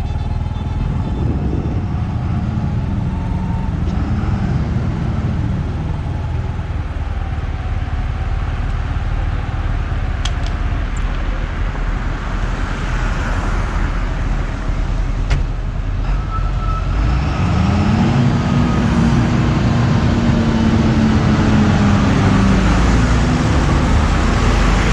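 Motor vehicle engine and road noise, running steadily. About two-thirds of the way in, a stronger engine note comes in, rises slightly and grows louder.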